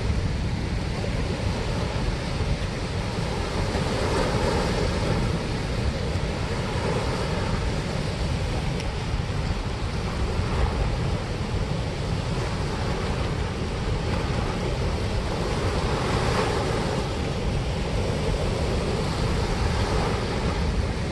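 Steady rush of water pouring through a dam spillway: an even, unbroken roar of falling and churning water.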